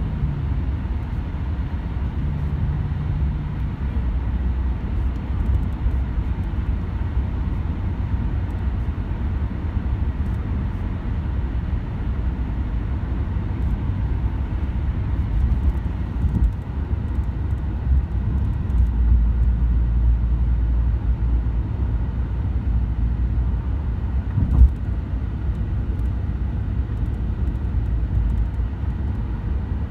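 Steady low road and engine rumble of a moving car, heard from inside the cabin, with one short knock about 25 seconds in.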